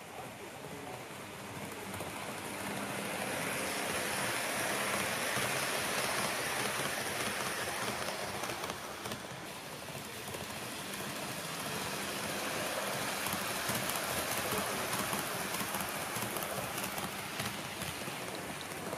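HO-gauge Super Hokuto diesel railcar model running on its track, the wheels on the rails making a steady rushing rattle. It swells twice as the train draws near, easing off in between.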